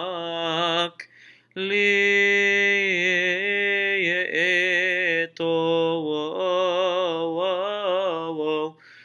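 A solo male voice chants a Coptic Orthodox hymn unaccompanied, drawing long melismatic notes with wavering ornaments. It breaks off for a breath about a second in, briefly after five seconds, and again near the end.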